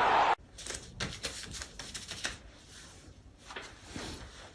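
A burst of loud crowd noise cuts off abruptly, followed by a series of light, irregular clicks and taps.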